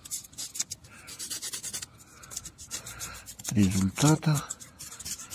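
A wooden stick scraping at carbon deposits in an engine cylinder head, an irregular run of scratchy strokes, with a brief murmur of a man's voice about three and a half seconds in.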